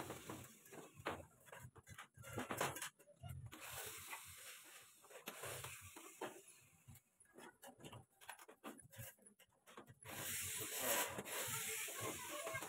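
Hand tin snips cutting thin sheet-metal rain gutter, a run of short metallic snips and crunches as the blades bite through the sheet. Near the end a louder rustling noise lasts about two seconds.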